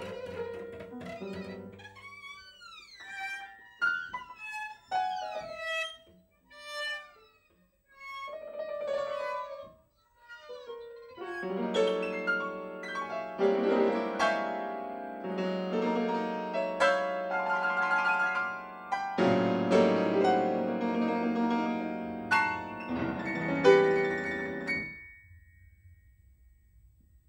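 Violin, cello and piano trio playing contemporary chamber music. Sparse notes and short falling glides give way, about eleven seconds in, to dense, loud sustained chords with a deep bass, which break off near the end into quiet.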